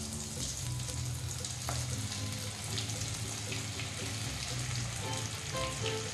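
Hot oil sizzling steadily in a stainless steel kadai as cornflake-coated chicken pieces deep-fry, the oil bubbling hard around them.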